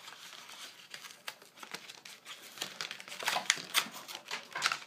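Stiff plastic blister packaging crinkling and crackling as it is worked open, the crackles sparse at first and coming thick and fast in the second half.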